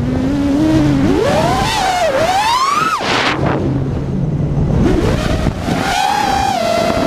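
Electric motors of an iFlight Nazgul5 FPV quadcopter whining, the pitch swooping up and down with the throttle. The pitch climbs to a high peak and drops off sharply about three seconds in, then builds again and holds a steadier tone near the end.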